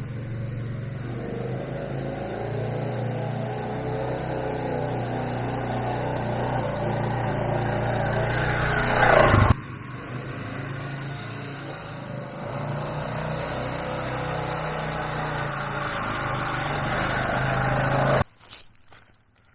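Four-wheeler (ATV) engine running while riding. The engine gets steadily louder up to a peak about nine seconds in and cuts off suddenly, then runs steadily again until it cuts off suddenly near the end.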